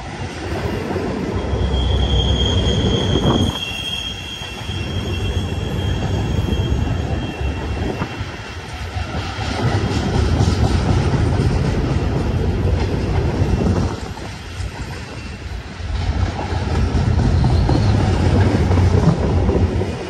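Empty intermodal well cars of a BNSF freight train rolling past close by: a steady rumble of steel wheels on rail that swells and dips as the cars go by. A high wheel squeal rings out a couple of seconds in.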